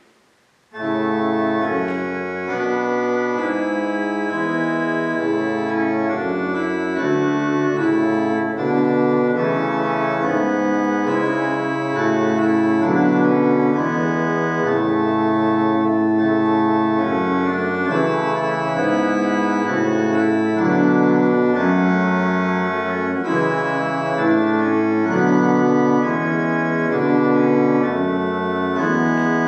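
Church organ playing a prelude of slow, held chords, starting suddenly just under a second in.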